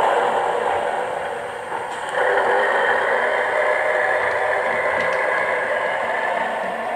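Simulated diesel railcar engine running, played by a Zimo DCC sound decoder through the small speaker of a Dapol OO gauge GWR streamlined railcar as it moves along the track. The engine sound steps up in loudness about two seconds in.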